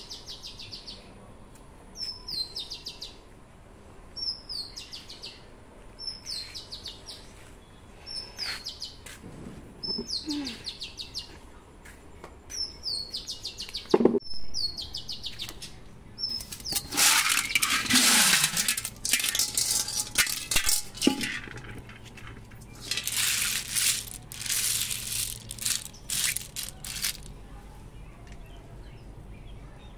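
A bird repeating a short high chirping call about once a second for the first nine seconds or so. Then comes a sharp knock, followed by louder bursts of rustling, rattling noise.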